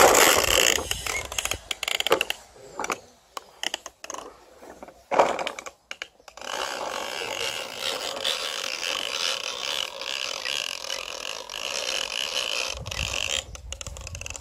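Plastic toy lawnmower pushed across grass, its wheel-driven noisemaker giving a steady rapid clicking rattle for about seven seconds in the second half. Before that come irregular knocks and handling bumps.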